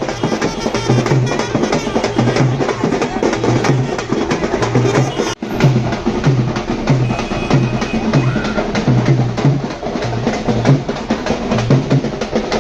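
Drums beating a steady, dense rhythm, with the low drum strokes repeating evenly; the sound drops out for an instant about five seconds in.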